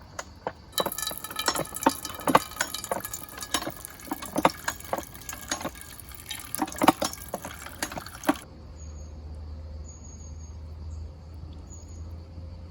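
A run of irregular clicks and knocks for about eight seconds. It then gives way abruptly to a low steady hum with short high insect chirps about once a second.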